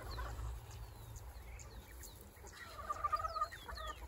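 Chickens calling faintly: short high descending peeps throughout, with a louder wavering call about three seconds in.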